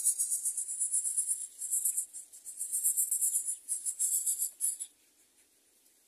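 Greater coucal nestlings begging: a rapid, high-pitched buzzing chatter that starts suddenly as the parent reaches the nest and breaks off about five seconds in.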